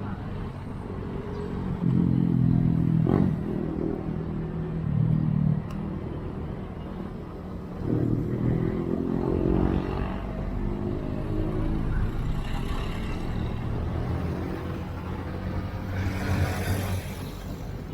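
Motorcycle engine running in street traffic, pulling away and speeding up twice, over a steady low rumble of road noise. A brief rushing hiss comes near the end.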